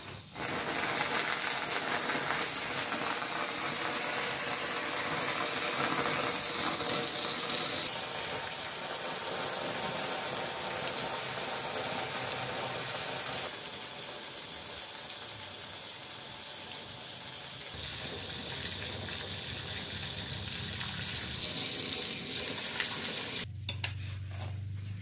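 Water spraying steadily over the hot aluminum casting and its bucket, a continuous hissing rush that cuts off shortly before the end.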